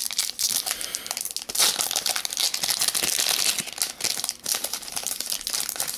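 Foil wrapper of an Upper Deck Victory Hockey trading-card pack crinkling as it is torn open by hand, a dense run of small crackles that fades out near the end.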